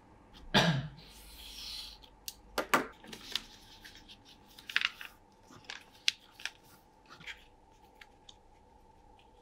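Hand-handling sounds: a sharp knock about half a second in, a printed paper sheet rustling as it is folded, then a string of small clicks and taps as the Mini 4WD car's plastic body and chassis parts are fitted together.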